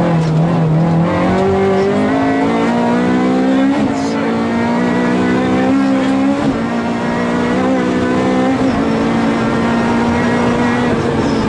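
Honda Civic rally car's engine heard from inside the cabin, running hard under acceleration. Its pitch climbs slowly and breaks briefly about four, six and a half and nine seconds in.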